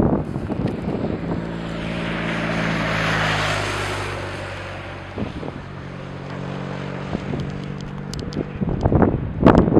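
A motorcycle passing on the road: its engine hum and road noise swell to a peak about three seconds in, then fade away. Wind buffets the microphone near the end.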